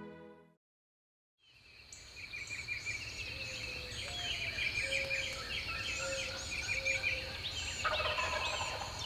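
Soft music fades out and a second of silence follows, then a dawn chorus of many songbirds chirping and whistling. A wild turkey gobbles about eight seconds in.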